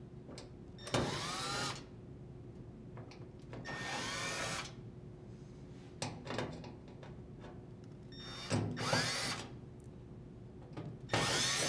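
Cordless drill driver with a Phillips bit backing out the screws of a washer's metal rear cover: four short runs of the motor, each about a second long and a few seconds apart, its pitch sliding as the speed changes.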